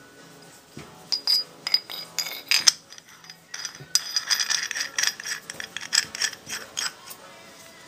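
Steel parts of a keyless drill chuck clinking, scraping and ringing as they are turned and pushed together by hand. There is a quick run of clicks and scrapes, with the densest stretch about four to seven seconds in. The scroll at the back is not yet seating.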